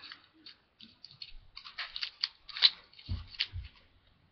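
Sticky tape and a paper label being handled and taped onto a plastic pill bottle: irregular short crackles and rips, with a couple of dull bumps about three seconds in.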